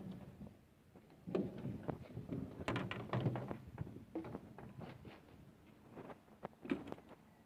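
Scattered metal knocks and clunks from work on a Hitachi excavator's swing motor, with a close run of them about three seconds in and single knocks around a second, four seconds and near seven seconds in.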